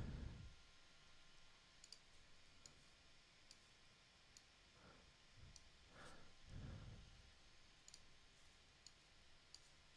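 Faint computer mouse clicks, about eight of them spaced irregularly, with a few soft low thuds in between.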